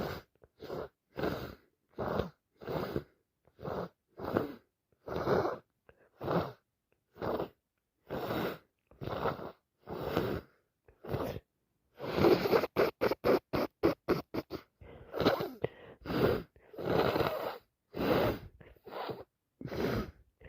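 Non-stop sneezing: a long fit of repeated sneezes, a little more than one a second, with a quick string of short ones about two-thirds of the way through.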